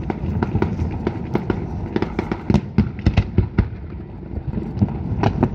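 Fireworks display: many sharp bangs and crackling pops, several a second at uneven spacing, over a steady low rumble.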